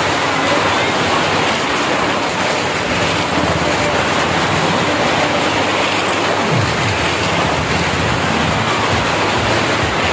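Motorcycle engine running hard as it circles the vertical wooden wall of a well-of-death drum, a loud steady din.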